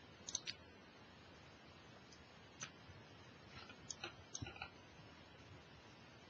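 Near silence with a few faint, sharp clicks: three close together at the start, one at about two and a half seconds, and a quick cluster around four seconds.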